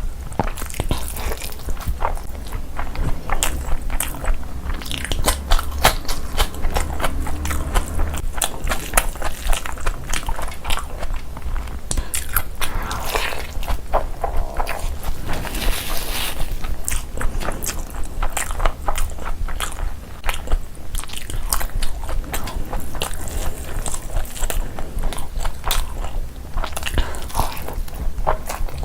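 Close-miked eating: a person chewing and biting food, with a dense run of quick wet mouth clicks and crunches.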